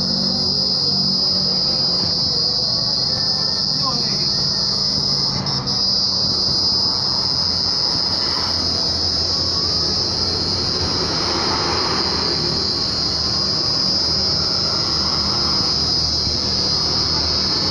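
Steady, loud, high-pitched shrilling of an insect chorus, with a low hum underneath.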